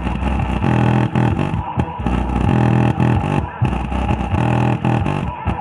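Music played loud through a subwoofer fed by a simple NE5532 op-amp low-pass filter, dominated by heavy bass that pulses in a repeating pattern about once a second.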